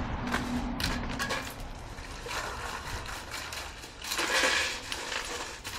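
Handling noises at a table with metal ice buckets: rustling, light knocks and clinks, and a louder rushing noise about four seconds in.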